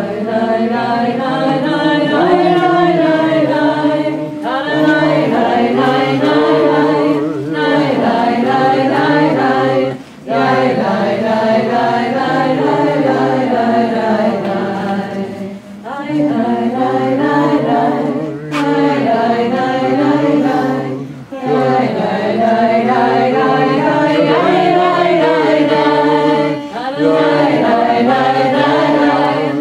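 A group of voices singing a song unaccompanied, in phrases of a few seconds with short breaks for breath between them.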